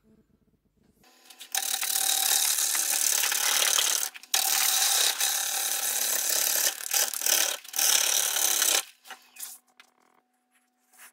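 A turning tool taking a roughing cut on a monkey puzzle log spinning on a wood lathe: a loud, rough scraping hiss over the steady hum of the lathe motor. The cut starts about a second and a half in, breaks off briefly around four seconds, turns patchy and stops near nine seconds, leaving the motor hum and a few ticks.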